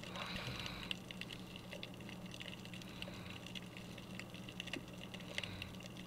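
Faint underwater sound picked up by a GoPro submerged in seawater: scattered light clicks and crackle, several a second and irregular, over a steady low hum.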